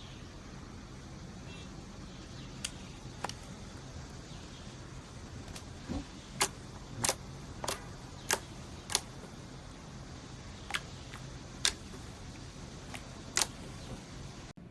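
Slime being pressed and handled, giving about a dozen sharp pops and clicks at irregular intervals, the loudest in the middle, over a steady low hum.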